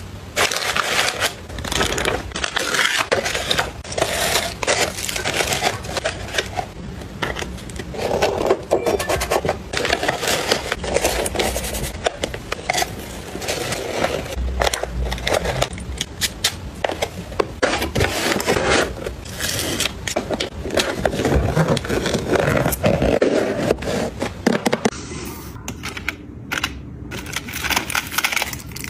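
Close-up handling sounds of packing a gift box: rustling and crinkling of shredded paper filler and tissue paper, with taps and clicks as items are set in. Near the end, sparser clicks and clatter of plastic hair clips in a clear acrylic drawer.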